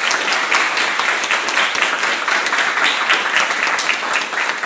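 Audience of students applauding, many hands clapping steadily.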